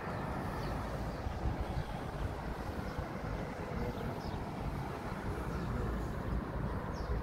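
Outdoor ambience: a steady low rumble and hiss, with a few faint, short high chirps.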